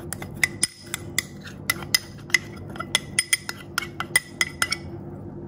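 Metal spoon tapping and scraping against a small glass bowl, knocking cornstarch out into a glass mixing bowl of milk: a quick, uneven run of sharp clinks that stops shortly before the end.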